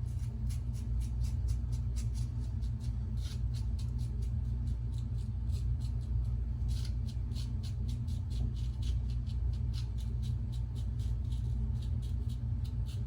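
Lather catcher safety razor scraping through lathered stubble on the chin, in many short strokes a few a second. A steady low hum runs underneath.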